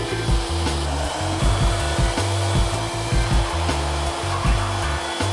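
Electric air pump blowing air out through a hose: a steady motor hum and airy hiss. Background music with a steady beat runs under it.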